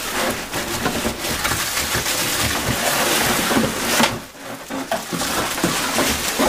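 Cardboard and plastic packaging rustling and scraping as the larger vacuum cleaner parts are pulled out of their box, with a short lull about four seconds in.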